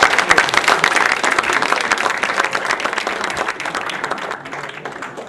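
Audience applauding, many people clapping at once, the applause slowly dying down before it cuts off abruptly.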